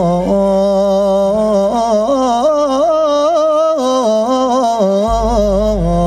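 Male singer drawing out a long wordless melismatic run with a wavering, ornamented pitch, in a Moroccan madih song praising the Prophet, over accompaniment. A low accompanying note falls away in the middle and comes back about five seconds in.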